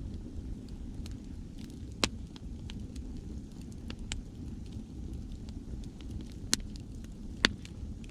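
Wood campfire crackling, with sharp pops now and then (the loudest about two seconds in and twice near the end), over a steady low rumble of sea waves.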